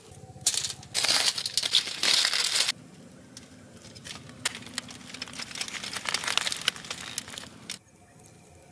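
Aluminium foil crinkling loudly as a foil-wrapped package is pulled open, loudest in the first few seconds, then softer crinkling as the food inside is handled on the foil, stopping near the end.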